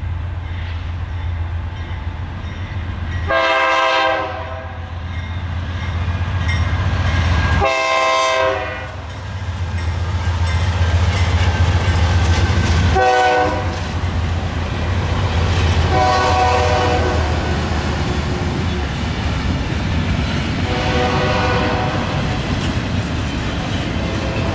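Freight train led by GE C44-9W diesel locomotives passing with a steady engine rumble, the horn sounding two long blasts, a short one, then two fainter long blasts. Later the railcars roll by with a clickety-clack of wheels on the rail joints.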